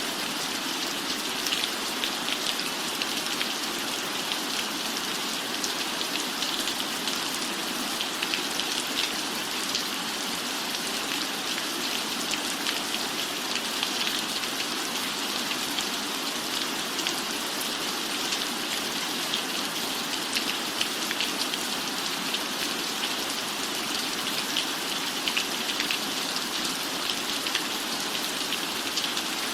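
Steady rain falling on a cabin roof: an even hiss dotted with many small drop ticks, unchanging throughout.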